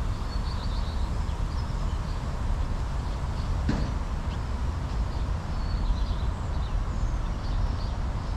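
Park ambience: small birds chirping on and off over a steady low rumble, with a single sharp click near the middle.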